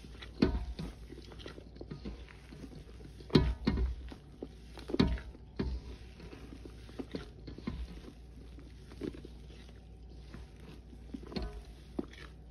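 Gloved hands kneading and squeezing crumbly, damp paste of Lime Ajax cleanser powder in a stainless steel bowl: soft crunching and squishing with irregular louder squelches and thuds, the strongest about three and a half and five seconds in.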